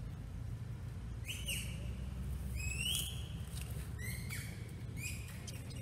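Several short, high-pitched squeaky calls that sweep sharply upward, with a longer one about three seconds in, over a steady low rumble.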